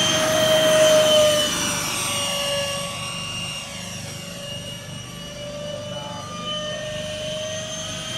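Freewing Eurofighter RC jet's twin electric ducted fans whining at high throttle through the takeoff run and climb-out. The whine is loudest in the first second or so, then fades with a slight sag in pitch and swells a little again near the end.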